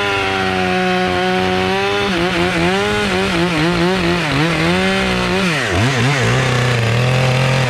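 Stihl 661C two-stroke chainsaw cutting through a log at full throttle. About two seconds in, the engine pitch starts wavering up and down as the chain bites. Near the end it drops and holds lower in the cut.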